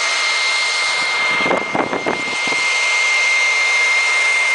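Blower running steadily with a high whine, its air blast spinning a wooden whirligig propeller; the noise briefly dips and turns uneven about two seconds in.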